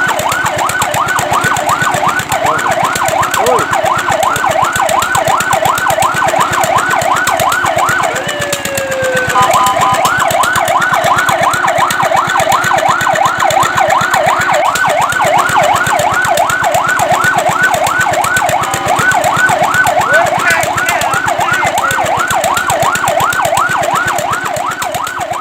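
Fire truck's electronic siren in rapid yelp, about four rising-and-falling sweeps a second. A little past eight seconds it breaks briefly into a falling tone and held tones, then goes back to the yelp; it fades near the end.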